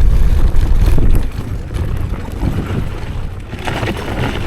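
A 48 V 5600 W electric scooter riding up a steep dirt trail: mostly wind buffeting on the microphone with tyre and trail noise, the low rumble easing about a second in and a harsher hiss coming in near the end. The climb does not strain the motor.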